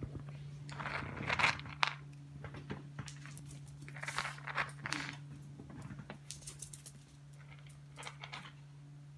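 A small dog scampering around on a tile floor, its claws clicking and scrabbling in scattered bursts, with rustling, over a steady low hum.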